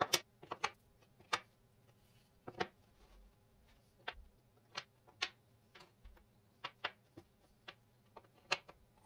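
Thick birch-plywood puzzle pieces clacking as they are set down and fitted together on a plywood table: about twenty sharp wooden clicks and knocks at an uneven pace, the loudest right at the start and near the end.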